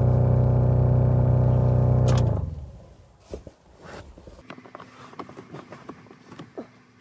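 2008 Toyota Avalon cabin blower motor running with a steady humming drone, which the owner puts down to a mouse or debris in the fan. A little over two seconds in it spins down and stops, leaving faint clicks and rustles of hands at the plastic panel under the dash.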